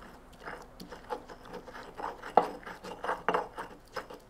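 Stone pestle pounding and grinding onion and garlic in a stone molcajete: a run of irregular knocks and scrapes of stone on stone, getting louder about halfway through.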